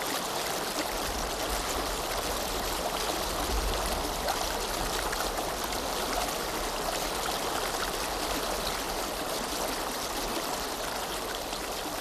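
Water of a small waterfall and mountain stream splashing and running steadily over rocks.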